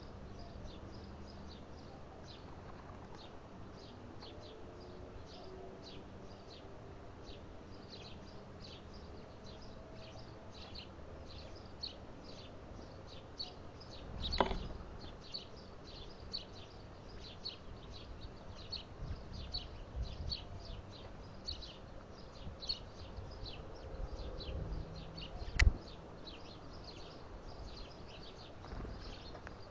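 Short high chirps repeating steadily, two or three a second, with a sharp knock about halfway and a louder one near the end.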